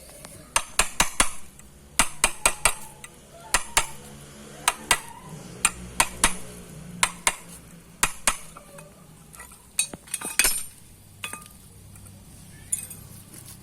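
Irregular sharp metallic clinks and taps, in quick clusters, of metal tools and parts knocking together during repair work.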